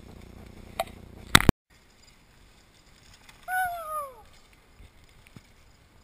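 Steady outdoor rush with a couple of sharp knocks in the first second and a half, then quiet broken by a person's short whoop falling in pitch, typical of a spectator cheering a passing downhill mountain-bike rider.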